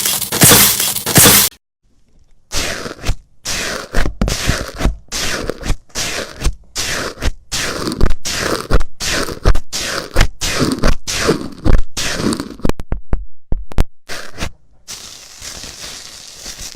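Slime being squeezed and pressed by hand: a run of crisp, crackling squishes, about two a second, with a burst of quick small pops past the middle and softer handling near the end.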